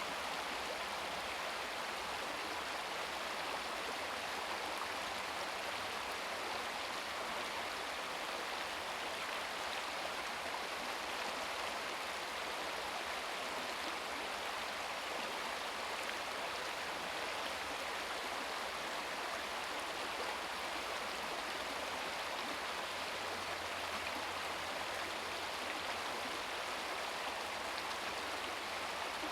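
Shallow brook babbling steadily over stones, a continuous bright rush of water.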